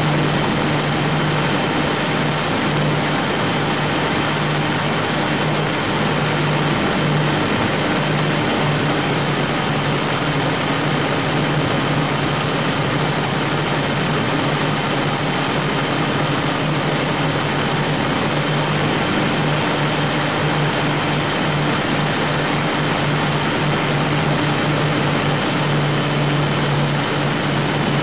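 Twin Scania 12-litre six-cylinder diesel engines of a fast motorboat running steadily, a low drone mixed with a broad rushing noise and a thin steady high whine above it.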